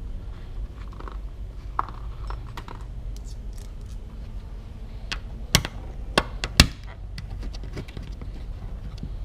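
Small clicks, scrapes and taps of hardware being handled while fitting bumper quick-release fasteners, over a steady low rumble. Three sharp knocks come a little past halfway.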